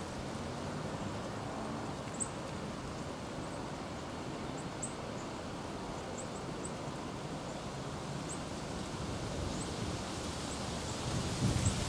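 Steady outdoor background hiss with faint, high, short bird chirps scattered through it, each sliding downward. Near the end a louder low rustling starts.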